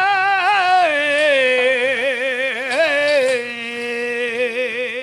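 A burrakatha singer holds one long, drawn-out sung note in Telugu folk style, with quick wavering ornaments. The note steps down in pitch about a second in and again near three and a half seconds.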